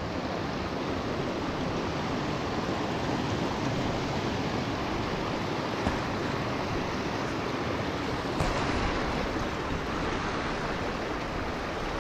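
Water running steadily through gaps in a log dam into a small spillway pool.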